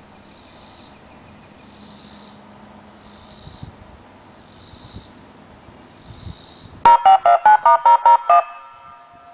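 A rapid string of about ten DTMF touch-tone beeps, each a two-tone chord, blared from a STORMAlert OmniAlert 1004 electronic siren speaker array near the end, with a short echo after. Before it only a faint high hiss pulsing about once a second.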